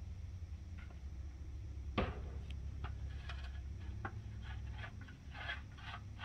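Long-handled tool scraping and rustling old run litter into a wheelbarrow: one sharp knock about two seconds in, then a run of short scrapes and rustles, over a steady low rumble.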